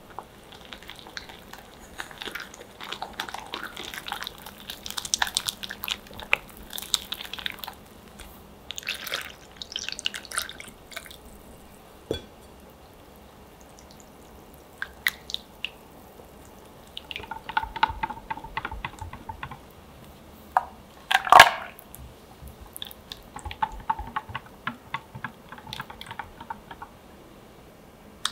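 Wire whisk beating a wet crepe batter of eggs, flour and milk in a glass bowl: bursts of quick wet clicking and sloshing with short pauses between. One louder clatter comes about three-quarters of the way through.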